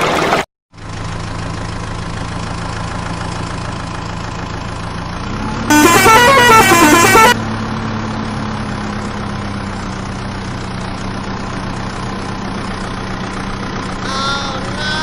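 A steady low vehicle engine hum. About six seconds in, a loud warbling horn whose pitch wobbles rapidly up and down sounds for about a second and a half.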